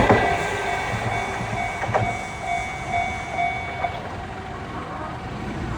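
Level-crossing electronic warning bell ringing with a pulsing 'kan-kan' about twice a second and cutting off about four seconds in, as the gates clear after a train. An electric train moves away, its running noise fading at the start, with a single sharp click of a wheel over a rail joint about two seconds in.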